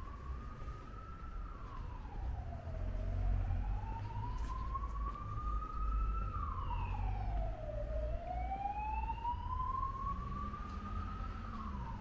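Emergency vehicle siren wailing: each slow climb in pitch is followed by a quicker drop, repeating about every five seconds, over a low rumble of street traffic.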